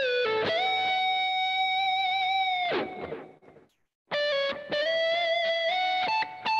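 Electric guitar played through effects, a slow lead line of long held single notes. The first note slides up and rings for about two seconds, then dies away into a second of near silence. After that the playing resumes with a quicker run of shorter notes.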